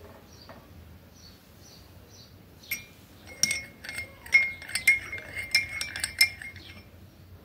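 Metal teaspoon stirring coffee in a ceramic cup, clinking against the cup in a quick run of ringing taps that starts about three seconds in and stops shortly before the end.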